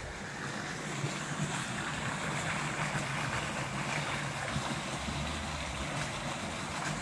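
Stream water rushing over rocks in an even, steady rush.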